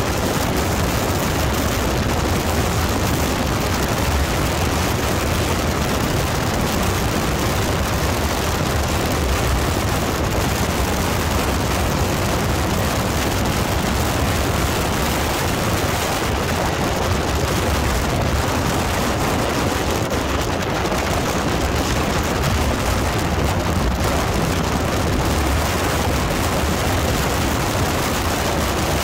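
Wind rushing over the microphone of a sport motorcycle moving at highway speed: a steady, heavy low rush with no distinct engine note standing out.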